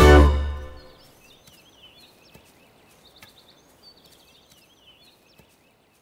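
The trailer's plucked-string music ends on a loud final chord with a deep bass hit that dies away within a second. Then comes faint forest ambience with small birds chirping and trilling, until it cuts off at the end.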